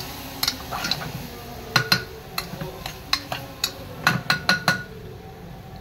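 Metal spoon clinking and scraping against the inside of an aluminium pressure cooker while stirring chopped vegetables with spices. The clinks come irregularly, with a quick run of them about four seconds in, and stop shortly before the end.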